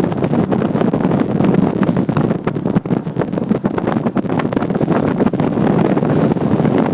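Loud, steady rushing noise with wind buffeting the microphone in rapid, irregular gusts.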